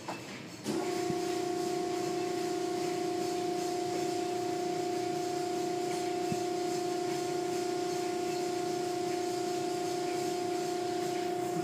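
Automatic car wash machinery heard from inside the car: a steady machine hum comes on suddenly under a second in and holds, over a hiss of spray and cloth brushes rubbing over the car.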